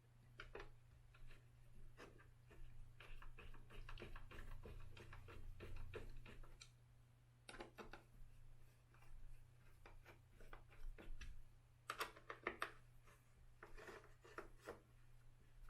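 Faint, irregular metallic clicks and taps of small bolts and a hex key as the front-bumper bolts are threaded in, with a clustered burst of clicks about twelve seconds in.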